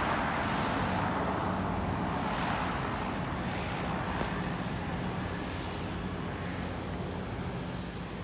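Floatplane's propeller engines running as it slows on the water just after landing: a steady low hum with a broad hiss that gradually fades.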